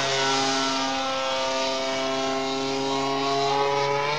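Radio-controlled model airplane's motor and propeller running in flight. It holds a steady note with a slight dip in pitch, then steps up in pitch near the end.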